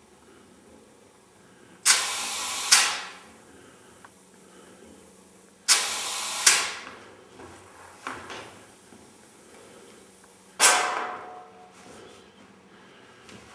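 Compressed air hissing from an air-line inflator gun with a pressure gauge, in three sudden bursts: the first two about a second long, each ending in a sharper puff, and the third shorter and fading out.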